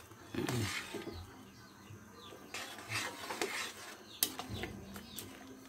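Metal ladle stirring noodle soup in a wok, scraping against the pan in a few short bursts, with two sharp clinks of metal on metal near the end.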